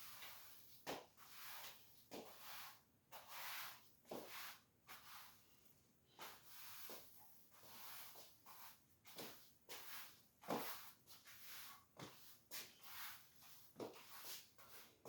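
Broom sweeping a floor: short, quiet swishing strokes at an irregular pace, one or two a second, with light taps in between.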